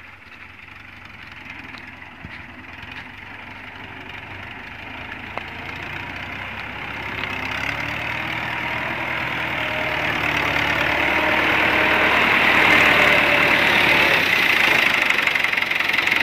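Fiat 640 tractor's diesel engine running as it pulls a laser land leveller, growing steadily louder as the tractor comes closer.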